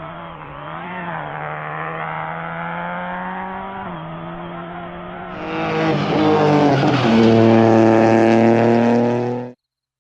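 Rally car engine running hard, its pitch climbing and then dropping sharply about four seconds in as it shifts gear. Past the middle a louder engine holds high revs, then cuts off suddenly near the end.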